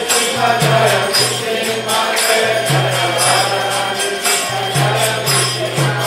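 Devotional mantra chanting: voices singing over quick jingling hand percussion and a low sustained note that steps between pitches.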